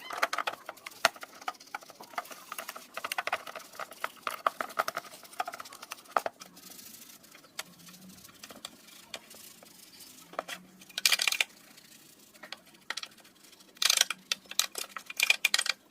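Hands working on a cassette player's parts: scattered small clicks, taps and rattles of plastic and metal, with a short burst of rushing noise about eleven seconds in and another near the end.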